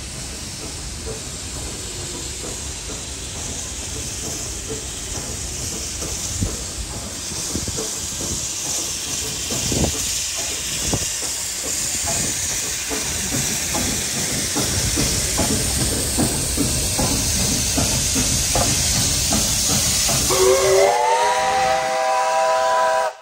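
NSW AD60 class Garratt steam locomotive 6029 drawing in along the platform: the hiss of steam and a low rumble grow louder as it nears. Near the end its steam whistle blows, sliding up in pitch and then holding as a chord of several tones.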